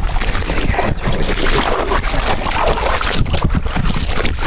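Footsteps through dry leaf litter and brush, a dense irregular crunching and rustling, over a low rumble of wind on the microphone.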